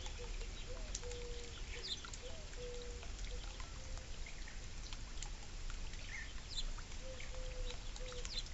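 Small birds chirping in short, scattered notes over trickling water from a bird fountain, with a low tone that keeps breaking off and starting again.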